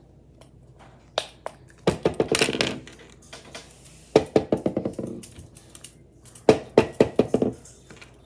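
Plastic fidget toys being played with: three bursts of rapid clicking, each about a second long, with a single click just before the first.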